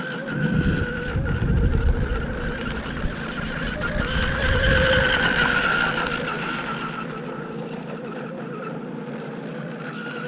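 Electric radio-control hydroplane running on the water, its motor giving a steady whine that grows louder from about four to six seconds in and then eases off. Wind buffets the microphone in the first few seconds.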